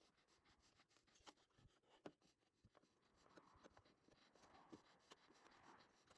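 Near silence, with a few faint ticks and a light scraping from a wood chisel paring the rough cuts clean.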